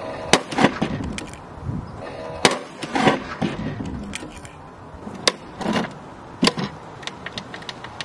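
A plastic toy washing machine tips over onto concrete. Its motor hum cuts off at a sharp knock, followed by a short plastic clatter. The same knock and clatter come about four times, a few seconds apart, as the moment is replayed.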